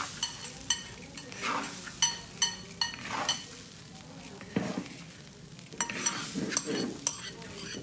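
Metal spatula scraping and clanking against a pan as a large batch of glutinous rice is stir-fried, over a sizzle of frying. The clanks come irregularly, several a second, with a lull a little past halfway.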